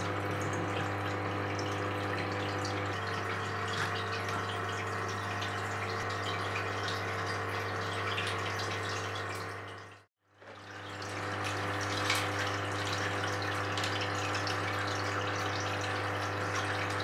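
Water running and splashing through a LEGO dam model over a steady low hum. The sound fades out about ten seconds in, then fades back in.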